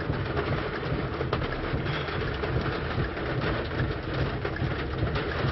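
Heavy rain pelting a car, with a steady low rumble underneath.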